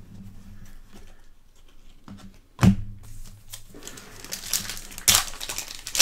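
Foil trading-card pack wrapper being torn open and crinkled by hand, with a sharp knock about two and a half seconds in and the crackling growing denser over the last few seconds.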